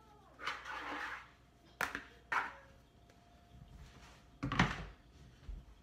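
Kitchen handling noises: a short scraping rustle as a plastic mixing bowl is wiped out, two sharp clicks, then a heavier thump about four and a half seconds in, over a faint steady hum.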